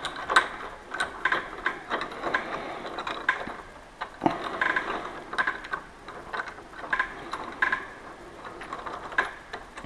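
Irregular light metal clicks and taps, a few a second, as a cylinder screw is turned by hand into the steel mounting plate of a Lockwood 001 deadlock and the plate shifts against the door, with one duller knock about four seconds in.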